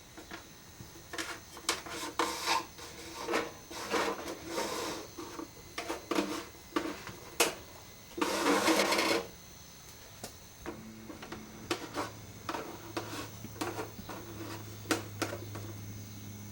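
Irregular clicks and light knocks, with a noisy rush about a second long roughly eight seconds in, the loudest sound; a low steady hum begins near the end.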